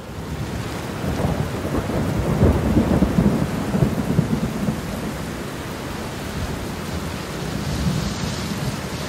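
Thunderstorm: steady heavy rain with low rolling thunder, swelling loudest a second or two in.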